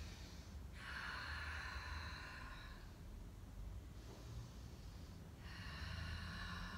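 A woman breathing audibly through a held yoga pose: one long breath starts about a second in and lasts about two seconds, and another begins about five and a half seconds in. A low, steady room hum runs underneath.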